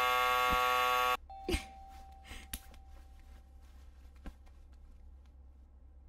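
Electric doorbell buzzer giving one steady buzz of about a second and a half, then cutting off. After it, only a few faint clicks over a low hum.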